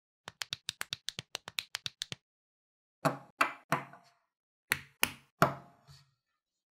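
A quick, even run of small plastic clicks, about eight a second, as the pieces of a toy building-brick dinosaur tail snap together. About three seconds in, the plastic tail sections are knocked down one after another onto a wooden tabletop, several louder knocks at uneven spacing.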